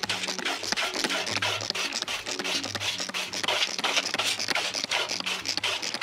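Background music with a steady beat and a stepping bass line, over repeated scratchy rubbing sounds.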